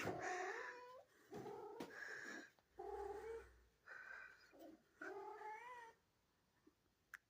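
Domestic cat yowling: about five drawn-out, wavering calls in quick succession, then stopping about six seconds in. A single sharp click near the end.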